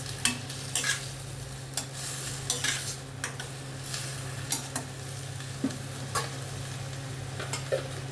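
A spatula stirring and scraping tomatoes cooked down in butter with onion and garlic in a pan, with a steady sizzle underneath. The sharp scrapes against the pan come irregularly, about once a second.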